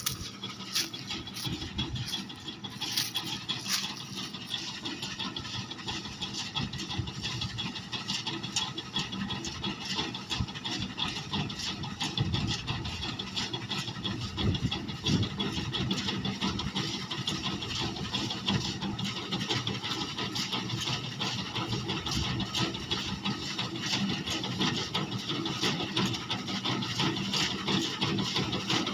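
Massey Ferguson tractor's diesel engine running steadily while its back-mounted reaper cuts soybeans, with a fast, continuous rattling clatter from the cutting mechanism over the engine drone. It grows gradually louder towards the end.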